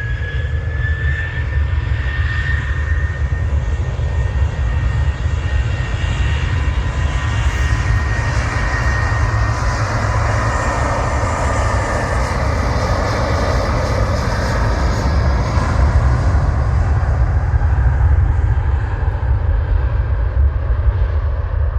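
Boeing 737 jet engines spooling up with a rising whine that settles into a steady whine over a loud low roar. The roar swells to its loudest near the end, then its high edge starts to fade.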